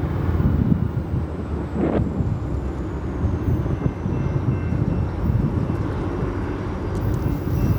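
Diesel-electric road locomotives of an Indiana & Ohio Railway grain train running under power as they approach, a steady low engine rumble, with a single short clank about two seconds in.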